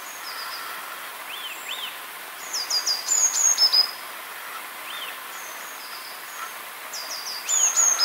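Small songbirds singing: a short high phrase of quick falling notes comes twice, about four to five seconds apart, with thin high call notes between, over a steady outdoor hiss.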